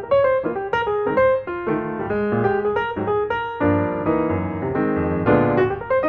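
Background piano music, a run of single notes changing to held chords about three and a half seconds in.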